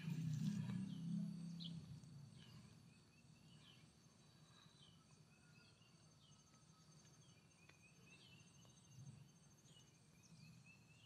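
Faint open-air ambience: small birds giving short high chirps every second or so over a steady, faint insect trill. A low rumble dies away during the first couple of seconds.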